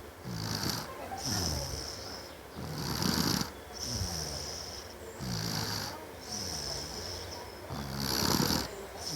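A young child snoring loudly and rhythmically in sleep, roughly one snore every second and a half, each snore falling in pitch, with a hissing breath between them.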